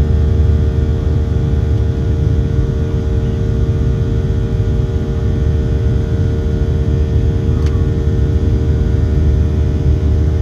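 Steady cabin noise inside a Boeing 737-700: a deep rumble with the even hum of the CFM56-7B turbofan engines and several steady tones, under a hiss of airflow.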